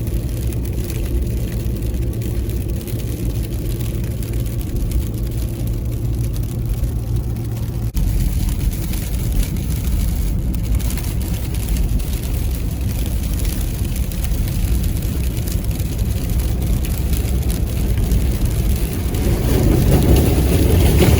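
A tow vehicle driving on the road with a trailer behind: a steady engine hum and road noise. The sound changes abruptly about eight seconds in and grows louder near the end.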